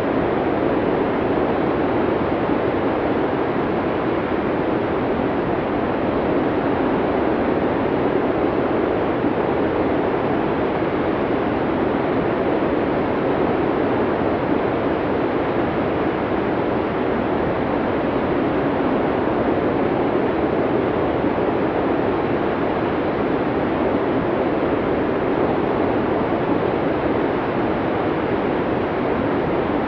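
Snowstorm wind blowing as an even, steady rushing noise, deep rather than hissy, with no gusts or breaks.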